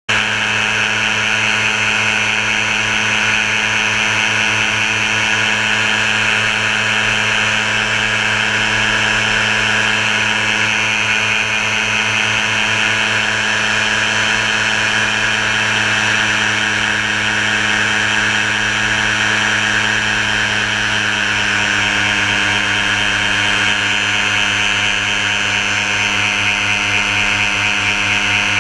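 Paramotor engine and propeller running at a steady speed in flight, a constant droning hum that holds the same pitch throughout.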